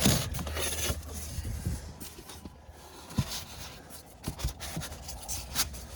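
Foam ICF blocks being set and lined up: a scraping rustle at the start, then scattered light knocks over a low steady rumble.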